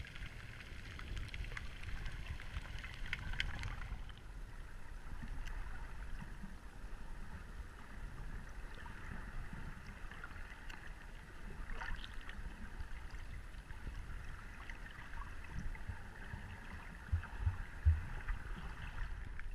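Muffled underwater ambience picked up by a submerged action camera: a steady low rumble of moving water with faint scattered crackling, and a few dull knocks near the end.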